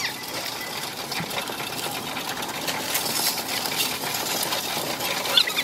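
Coinstar coin-counting kiosk running as loose coins are fed into its tray: a dense, continuous clatter of coins rattling through the machine, growing slowly louder.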